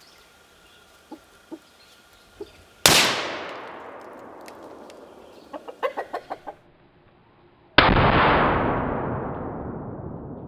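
Two rifle reports about five seconds apart, each a sharp crack followed by a long fading echo, from a bolt-action .30-06 rifle firing M2 armor-piercing rounds. A quick run of short clicks comes between them.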